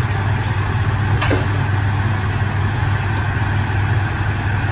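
Steady low hum with an even hiss over it, from a kitchen fan running.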